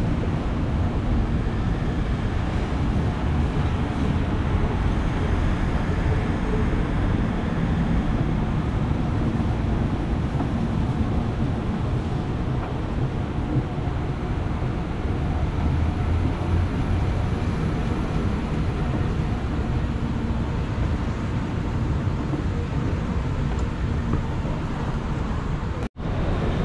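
Long metro-station escalator running, heard from its steps while riding up: a steady low rumble and hum of the step drive. The sound cuts out for an instant near the end.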